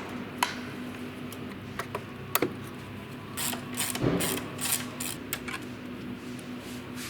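Mechanic's hand tools working on car parts: scattered sharp metallic clicks and knocks, with a short run of rasping, ratchet-like sounds about three and a half to five seconds in, over a steady low hum.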